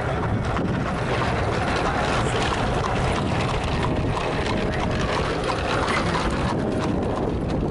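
Steady wind and road noise from a moving vehicle, with wind buffeting the microphone and scattered light clicks throughout.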